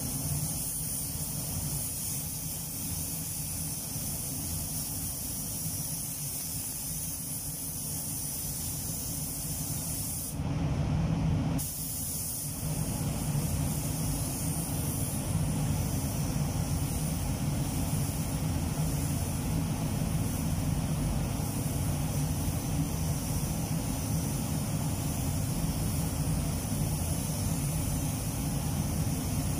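Steady ventilation noise of a car spray booth; about ten seconds in, a short blast of air hiss from an air spray gun, then from about twelve seconds the gun's steady hiss as it sprays clear coat onto a car bumper.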